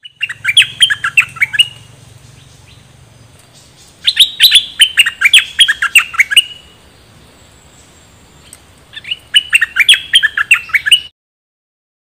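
A caged bulbul (Thai nok dok taeng) singing in three bursts of rapid, sharply falling chirps, each lasting about two seconds. The last burst ends abruptly about eleven seconds in.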